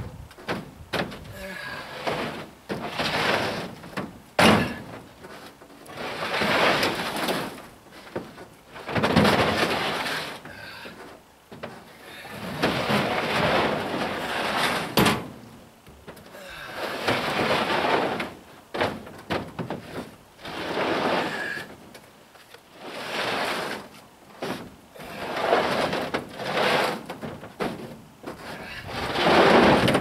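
Concrete blocks being shifted across a pickup truck's bed: a run of repeated gritty scrapes, each a second or two long, with an occasional sharp knock as block strikes block or the bed.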